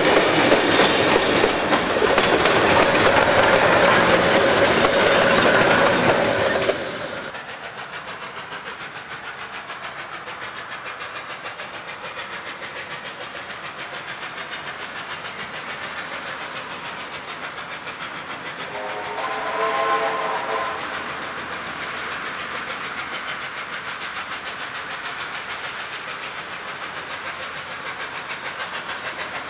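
Steam-hauled passenger train passing close by, the carriage wheels clattering over the rail joints, for about the first seven seconds; after a cut the sound drops to a quieter steady background. About twenty seconds in, a distant steam locomotive whistle sounds once for about two seconds.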